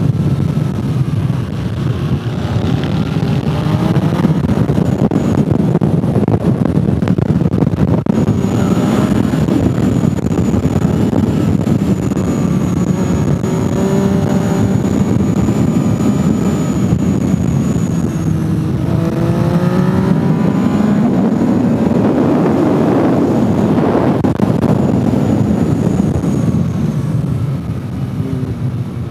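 Motorcycle engine at track speed, revs rising in pulls through the gears a few times and held steady through a long stretch in the middle, over a constant rush of wind and road noise.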